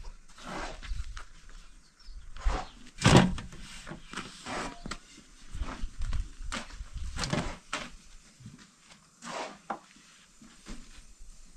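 Irregular knocks, taps and rubs of flatbread making: thin wooden rolling pins and a wooden turning stick working dough on wooden boards and on a domed metal griddle, the loudest knock about three seconds in.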